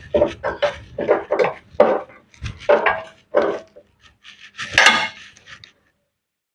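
Irregular metallic clinks and clatter of tools and metal parts being handled, some knocks with a brief ring. It cuts off abruptly to silence near the end.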